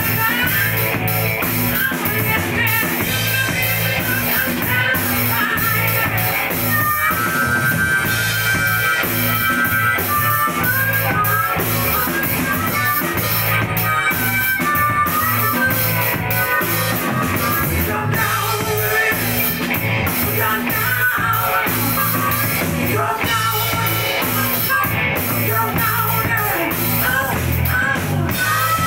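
Rock band playing live: electric guitar, bass guitar, drum kit and keyboard, with a harmonica playing held notes over the groove through the middle.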